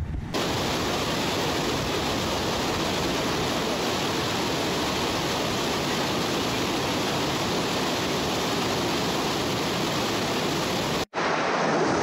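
Steady rush of river whitewater at a standing surf wave, an even unbroken roar that cuts off abruptly near the end.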